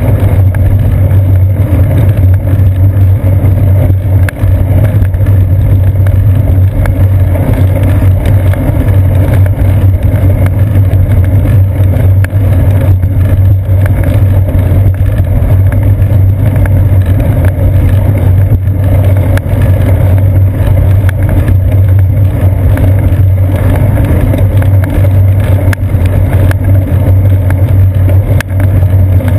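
Steady, loud low rumble of road vibration and wind noise picked up by a seat-post-mounted GoPro Hero 2 on a moving bicycle, with faint small rattles over it.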